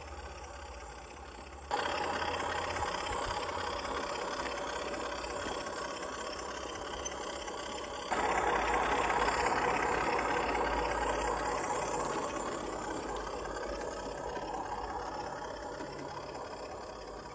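G-scale model class 08 diesel shunting locomotives running along garden railway track, one towing the other, with a steady mechanical running sound. It gets suddenly louder about two seconds in and again about eight seconds in, then slowly fades.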